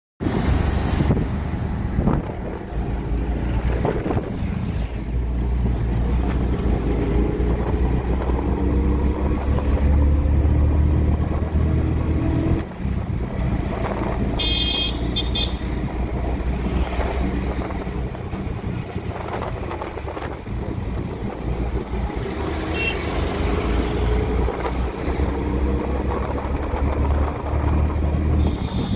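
Auto-rickshaw engine running while the rickshaw is driven, heard from the open passenger compartment. The engine pitch rises twice as it speeds up, with road noise throughout and short high beeps about halfway through.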